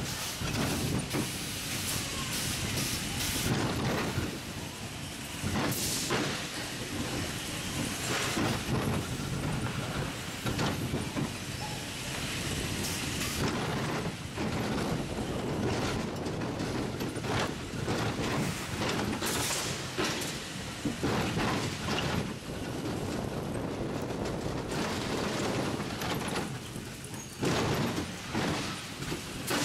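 Spinning wild mouse steel roller coaster car running along its track: a continuous rattling rumble of wheels on steel rails, broken by frequent clunks and jolts.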